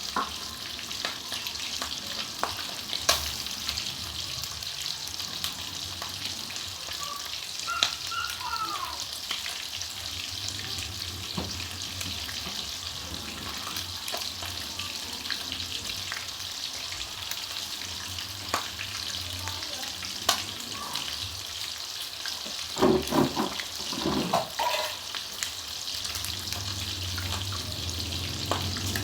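Breaded chicken pieces frying in hot oil in a pan, a steady sizzle. There are a few sharp clicks of a utensil against the pan and a brief clatter about 23 seconds in.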